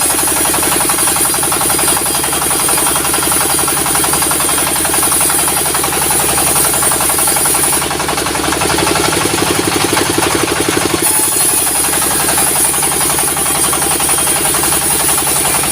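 Sawmill's diesel engine running steadily with rapid even firing pulses, with a high whine above it that drops away for about three seconds around the middle.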